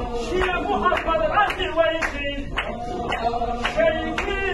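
A group of men chanting together in a Sufi zikr circle, their voices rising and falling, over sharp rhythmic beats of claps or stamping feet a little under twice a second.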